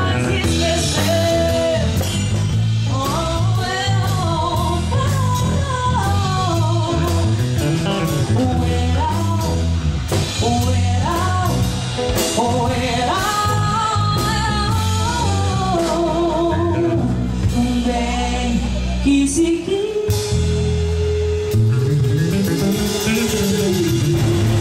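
Live rock band performing: electric guitar, bass guitar and drum kit under a woman's sung vocal line, with a long held note near the end.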